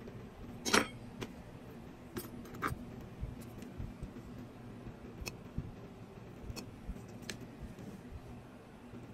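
Light metal clicks and ticks from a steel sculpting pick and small hand tools working around a rubber mold in its metal ring, the loudest click about a second in and a few scattered fainter ones after, over a low steady hum.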